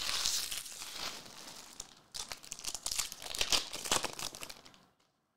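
Foil wrapper of a Select AFL Legacy trading-card pack crinkling and tearing as it is ripped open by hand, in two spells, the second starting about two seconds in.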